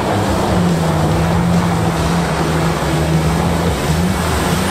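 Engine of an Acela 6x6 rescue truck running steadily under load as it drives through mud and standing water, with tyres churning and splashing. The engine note dips briefly and comes back up about four seconds in.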